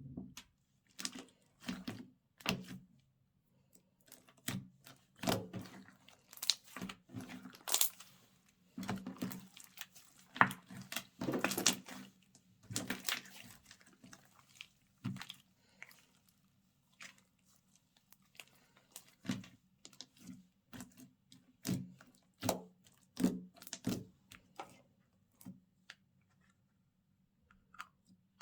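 Slime being squished, stretched and mixed by hand: irregular wet squelches, pops and crackles, busiest in the first half and thinning out later, over a faint steady low hum.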